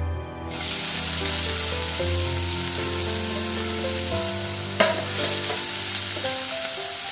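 Sliced onions dropped into hot oil in a nonstick frying pan, setting off a steady sizzle about half a second in as they begin to fry. A wooden spatula stirs them, with one sharp knock near five seconds, and soft background music plays underneath.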